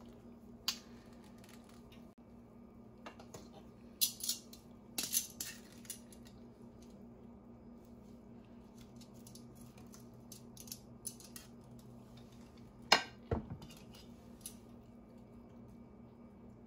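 Metal kitchen tongs clinking and scraping against a glass jar and a glass baking dish as pickled vegetables are lifted out: scattered sharp clicks, with one louder knock about 13 seconds in, over a faint steady hum.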